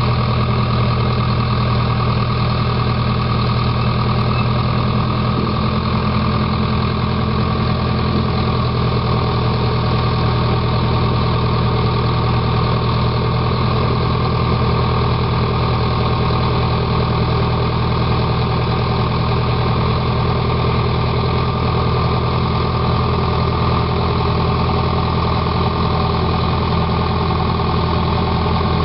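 Heavy diesel engines of earthmoving machines, a tracked excavator and a crawler dozer, idling steadily: a deep, even engine drone that neither rises nor falls.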